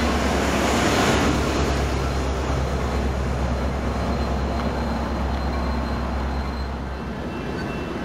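EMD F59PHI diesel locomotive pushing a commuter train away down the track: a steady low engine drone with wheel-on-rail rumble, slowly fading as it recedes. The drone cuts off about seven seconds in.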